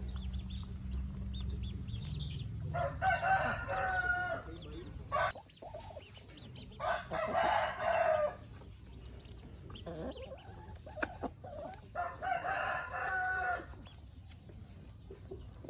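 Roosters crowing: three long crows, each about a second and a half, with short clucks between. A low steady rumble runs underneath and stops about five seconds in.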